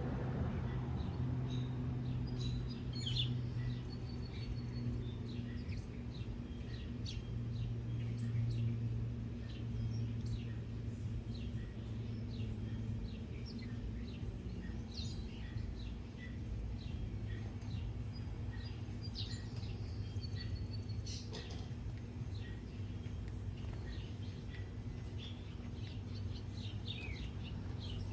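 Small birds chirping: many short, high chirps scattered throughout, some rapid runs, over a steady low hum.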